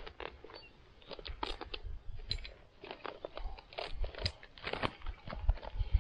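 Irregular crunching and crinkling of a nylon recovery-gear bag being handled, a quick run of small rustles and clicks.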